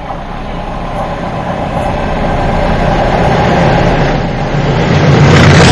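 A pair of English Electric class 20 diesel locomotives approaching under power, their engines' drone and whine growing steadily louder.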